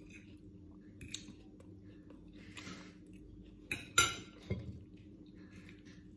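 Metal fork and knife clinking against a ceramic plate: a few sharp clinks, the loudest about four seconds in.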